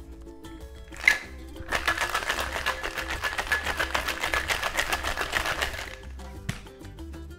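Ice rattling inside a metal tin-on-tin cocktail shaker as a cocktail is shaken hard: a fast, even rattle lasting about four seconds. There is a sharp knock just before it starts and a single tap near the end. Background music plays underneath.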